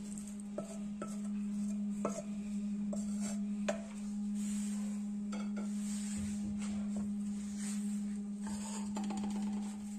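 Cooked tomatoes scraped out of a metal bowl onto a stone grinding slab: a spoon clinks and taps against the bowl, irregular sharp clicks mostly in the first few seconds. A steady low hum runs under it throughout.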